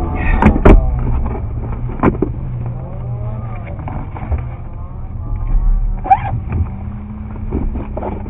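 Car engine running steadily at idle, heard from inside the cabin. Over it come a few sharp knocks and clatters, two close together near the start and another about two seconds in, and a short squeak about six seconds in.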